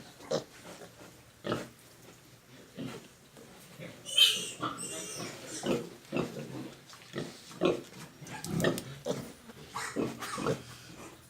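Pigs grunting in short, irregular bursts, with a sharp high squeal about four seconds in.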